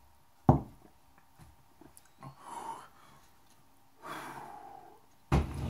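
A person breathing out heavily in two long sighing breaths, the burn of hot chili peppers in the mouth. A sharp knock about half a second in is the loudest sound, and another thump comes near the end.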